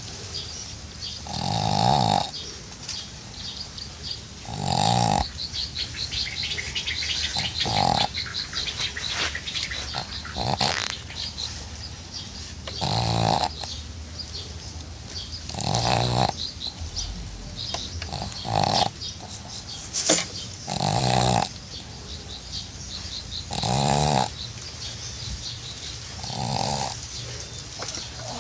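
Sleeping dog snoring: about ten loud, rough snores, roughly every three seconds, with softer hissing breaths between them.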